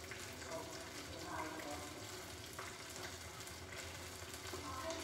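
Breadcrumb-coated pork strips frying in hot oil in a small pan: a steady sizzle with scattered small pops.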